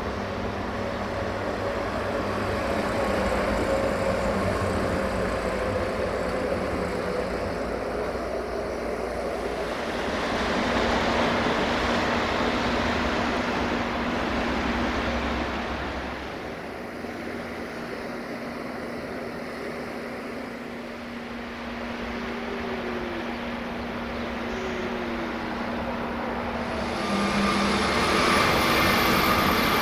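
060-DA (LDE2100) diesel-electric locomotive with its Sulzer engine running as it approaches hauling a freight train: a steady drone over outdoor noise. Near the end a higher tone joins in.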